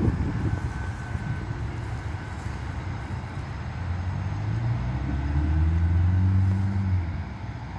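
A road vehicle's engine passing on the road, growing louder to a peak about six seconds in and then fading, over wind rumbling on the microphone.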